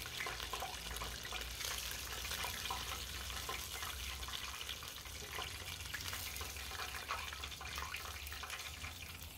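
Buttermilk-battered chicken pieces deep-frying in a pot of hot oil: a steady sizzle, with a few light clicks of metal tongs as pieces are lifted out.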